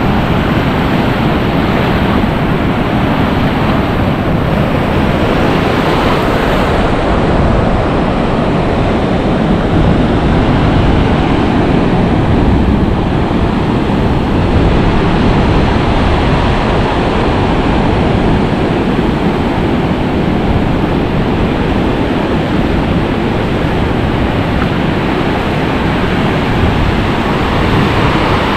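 Ocean surf breaking and washing over the shallows in a steady rush, with wind rumbling on the microphone.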